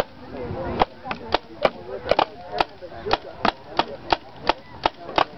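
Paintball marker firing a steady string of sharp pops, about three shots a second, starting about a second in.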